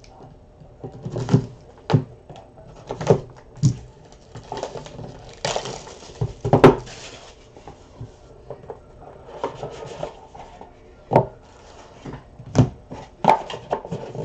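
A cardboard hobby box of 2020 Leaf Metal Draft football cards and its contents being handled on a table: scattered knocks and taps, with a longer rustle about six seconds in and a sharp knock just after it.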